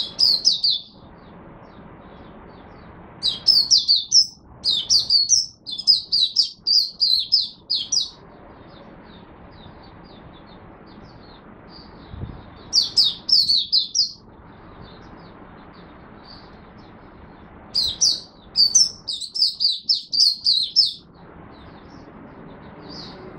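Caged white-eye (mata puteh) singing four bursts of rapid, high twittering notes, with pauses of several seconds between them, over steady low background noise.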